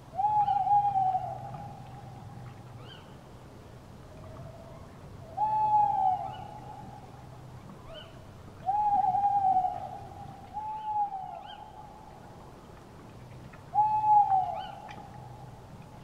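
An owl hooting: five long, level hoots, each lasting about a second, with faint short high chirps scattered between them.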